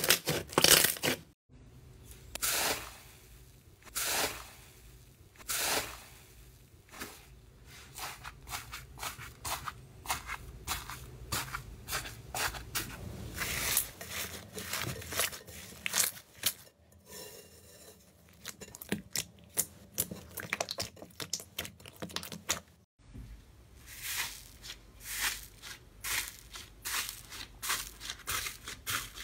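Hands squeezing and kneading thick foamy slime: dense runs of crackles and small pops as air pockets burst, with louder squelching presses now and then. The sound drops out for a moment twice.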